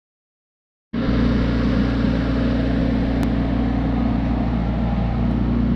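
Mini digger's engine running steadily at a constant speed. It starts abruptly about a second in.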